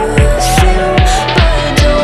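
Background music with a steady beat: a deep bass drum hitting two to three times a second under held notes.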